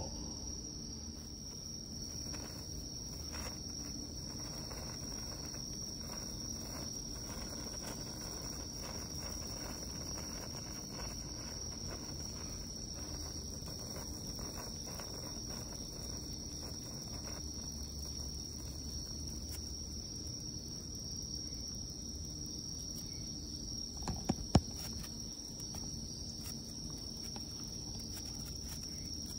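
Crickets chirring steadily on one high-pitched note, with faint irregular crackling from a burning senko hanabi sparkler, mostly in the first half. A few sharp clicks come near the end.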